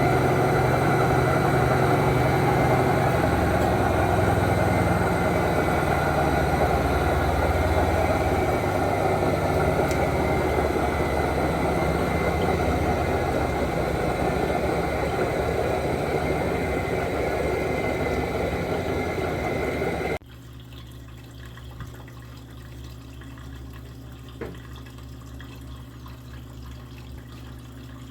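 Whirlpool Clean AWM 468 5 kg washing machine running through its intermediate rinse, a loud steady machine noise mixed with rushing water. About twenty seconds in it cuts off suddenly, leaving a low steady hum and a few faint clicks.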